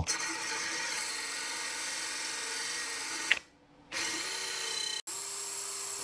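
A drill spinning a Sharppog grinding attachment against a blunt multitool blade, grinding new teeth into it: a steady whir with a grinding hiss. It stops briefly about three and a half seconds in, and again for a moment about five seconds in.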